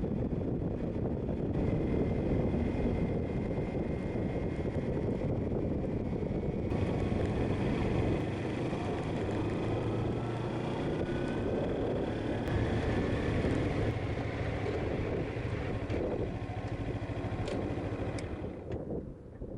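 Motorcycle on the move: a steady engine drone mixed with heavy wind and road rush, the engine note rising as it accelerates about halfway through.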